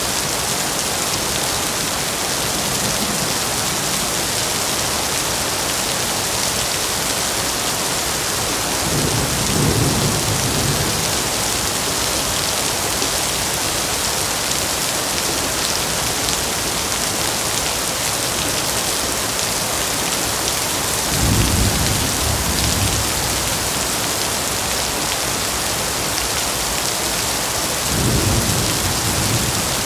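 Heavy rain falling steadily, with deep rumbles of thunder rolling in three times: about nine seconds in, about twenty-one seconds in, and near the end.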